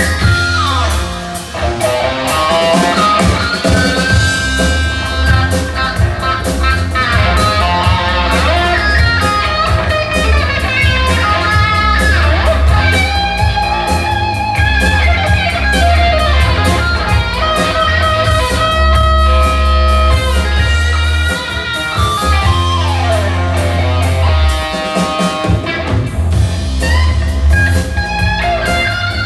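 Band music led by an electric guitar, with notes sliding down in pitch several times over a steady low bass.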